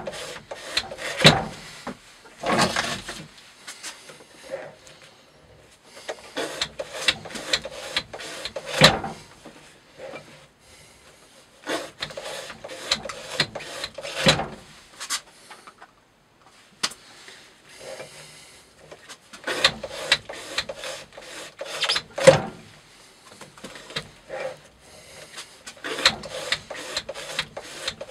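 Spyderco Para Military 2 knife blade in Maxamet steel slicing through natural-fibre rope again and again on a rope-cutting test rig: rasping cuts with sharp knocks from the rig, at uneven intervals.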